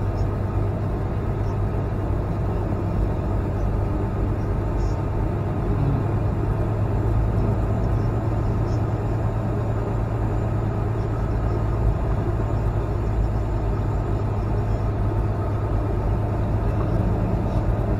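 Semi truck on the road: a steady low engine drone with road noise, unchanging throughout.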